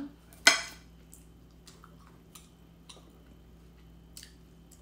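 Quiet eating sounds of a raisin scone being pulled apart by hand and poked with a fork. There is one short, sharp, louder sound about half a second in, then a few faint scattered clicks.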